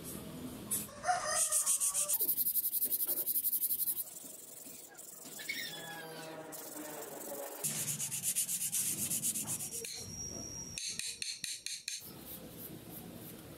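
Sandpaper rubbed in quick back-and-forth strokes along the steel shank and wooden handle of a small homemade chisel. It comes as several runs of rapid, even rasping strokes with short pauses between.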